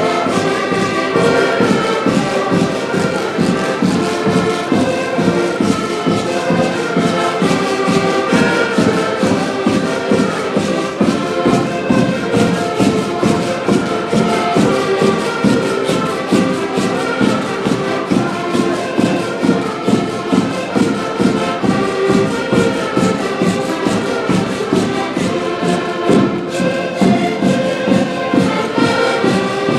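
A brass band playing a tune over a steady drum beat.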